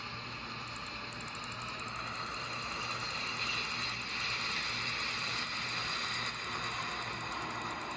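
Inside a rolling ATSF caboose: steady running noise of the car on the rails, with rattling and a hiss that grows louder toward the middle and eases off after about six seconds.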